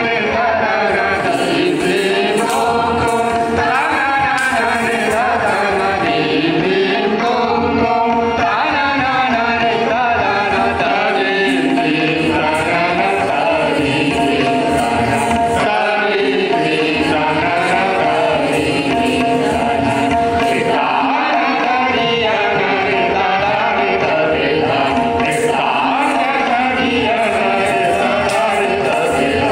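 Live Indian classical vocal music for Kathak dance: singers' voices over a held harmonium accompaniment, with rhythmic percussion strokes throughout.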